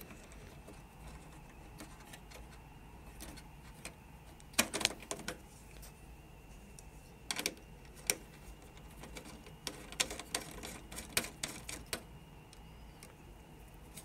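Small scattered clicks and taps of a Wi-Fi antenna being screwed by hand onto a PCIe card's threaded antenna connector on the back of a desktop PC, with a few near the middle and a quicker run of them later.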